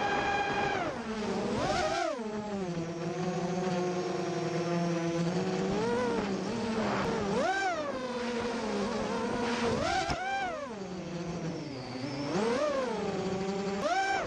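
FPV quadcopter's motors whining, the pitch held high at first, dropping about a second in, then rising and falling in quick swells several times as the throttle is punched and eased.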